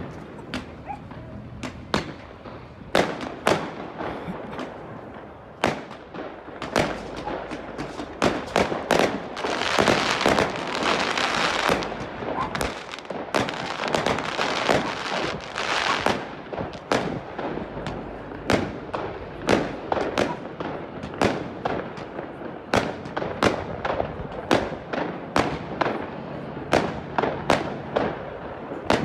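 Fireworks and firecrackers going off from a fishing boat on the river: a long run of sharp bangs at irregular intervals, roughly one or two a second, with a denser spell of rapid crackling about a third of the way in.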